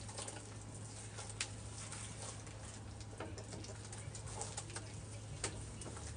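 Hands squishing and working a thick wet paste of cleaning powder, with soft scattered crackles and clicks over a steady low hum.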